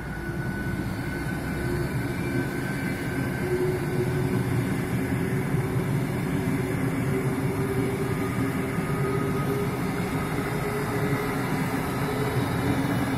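PKP Intercity Pendolino (ED250) electric high-speed train passing through a station without stopping. A steady rush of wheels on rail and air along the carriages, with faint steady tones under it. It swells as the train arrives and stays loud while the carriages go by.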